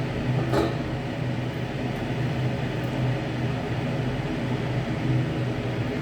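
Steady low hum of an electric fan motor running, with an even whirring noise over it.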